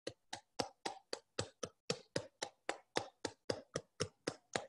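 Soft, regular rubbing strokes, about four a second, of a small therapy ball being worked by hand against the calf.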